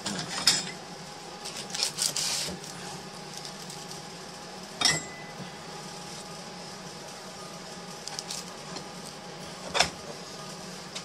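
Handling knocks and clinks of wood and metal as a hardwood mould is set and centred in a C-clamp press: a sharp knock about half a second in, a cluster of rattles around two seconds, and single knocks near five and ten seconds, over a steady hum.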